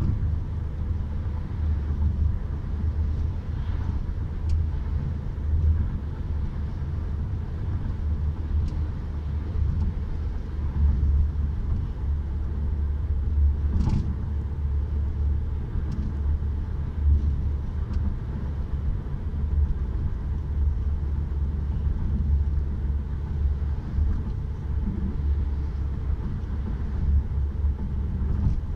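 Road noise heard inside a moving car's cabin: a steady low rumble of tyres and engine at highway speed, with a single short click about halfway through.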